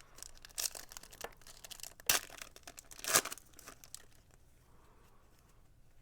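A trading card pack wrapper being crinkled and torn open, with irregular crackling and two loud sharp tearing sounds about two and three seconds in, then quieter handling.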